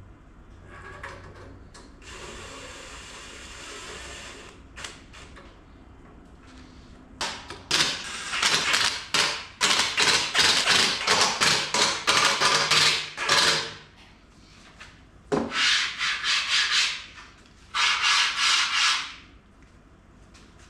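Cordless drill working against a steel table frame in several bursts: one long rough run of about six seconds, then two shorter ones near the end.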